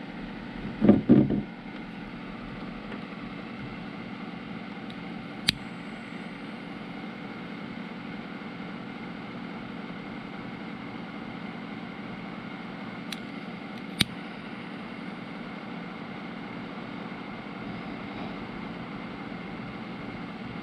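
Heat gun running steadily with an even fan hum and hiss, heating solder-seal butt connectors to melt the low-temperature solder and shrink the tubing. A short loud knock about a second in and two sharp clicks later on.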